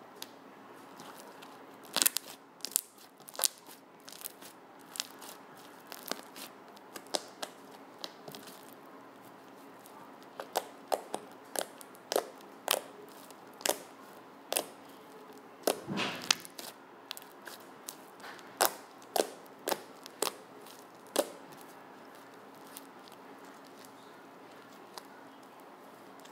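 Fluffy slime made from glue, shaving cream and Tide detergent activator, stretched, folded and pressed by hand. It gives scattered sharp pops and clicks, with a longer crackle partway through.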